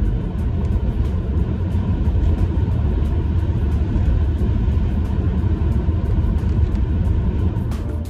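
Steady low rumble of road and engine noise heard inside a moving car. It cuts off just before the end.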